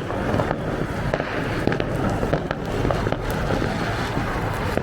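Firecrackers going off: a steady hissing crackle with many small sharp pops scattered through it.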